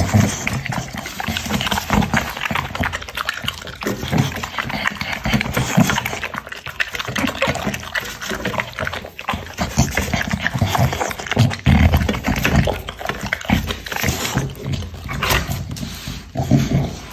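A short-nosed, bully-type dog eating soft food from a metal plate, with a busy, uneven run of chewing and licking noises as it clears the plate.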